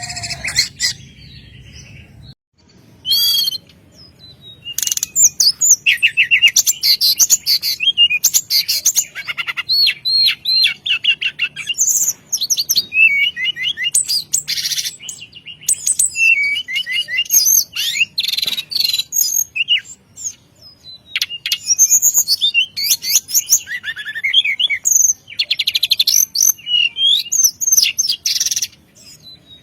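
A small songbird singing a fast, varied song of high chirps, trills and swooping whistles, in quick phrases broken by short pauses. The song starts a few seconds in, after a brief lull.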